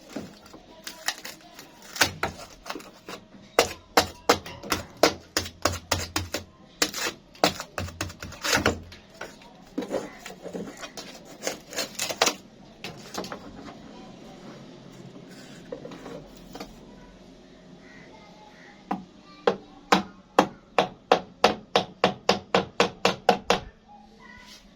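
Repeated hammer-like knocks on a refrigerator's lower evaporator plate as it is being worked free for removal. First comes a long irregular run of blows, then a pause, then a quick even run of about three blows a second near the end.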